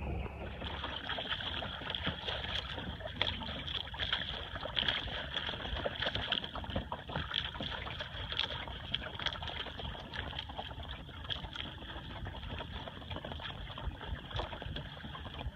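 Water splashing and lapping against the hull of a small sailboat under way, with irregular sharp slaps over a steady hiss. A low rumble stops about half a second in.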